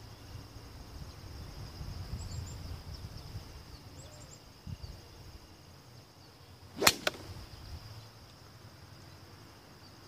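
Golf club striking the ball off the turf: one sharp crack about seven seconds in, followed at once by a lighter click.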